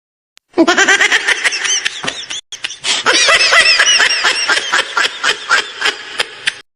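Laughter sound effect: a long run of quick, pitched laughs that starts about half a second in, breaks off briefly about two and a half seconds in, then carries on until just before the end.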